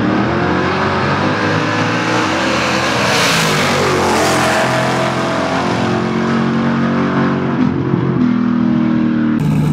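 Drag-racing cars accelerating hard down the track, engines at high revs, loudest about three to four seconds in and then fading as they pull away. Near the end it cuts abruptly to an engine running steadily.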